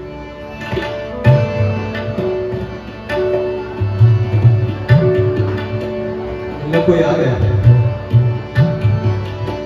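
Tabla and harmonium playing an instrumental interlude of a ghazal. The harmonium holds sustained melody notes while the tabla keeps a rhythmic pattern with deep bass-drum strokes.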